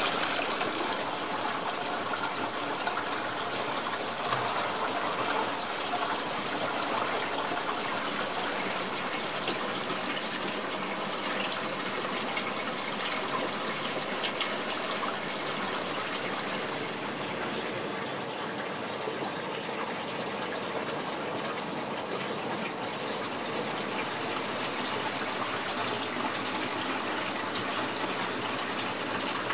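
Hot spring water pouring steadily from a pipe into a soaking tub, a continuous splashing gush.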